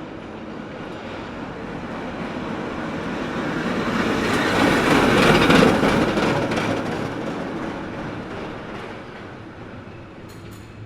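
A cable car passing by: a rumbling, clattering run that grows louder to a peak a little past halfway, with a quick rattle of clicks at its loudest, then fades away.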